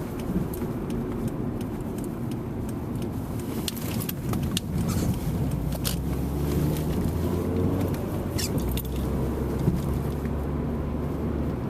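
Honda Civic with stiff sport suspension driving over a bumpy road, heard from inside the cabin: steady engine and road noise with scattered short knocks and rattles as it takes the bumps.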